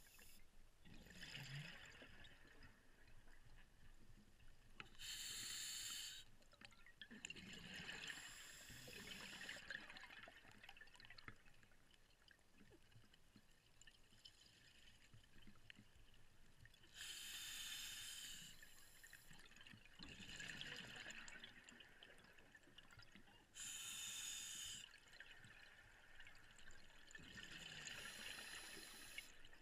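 Scuba diver breathing through a regulator underwater, several slow breaths. Each inhalation is a short sharp hiss, and each is followed a few seconds later by a longer bubbling rush of exhaled air.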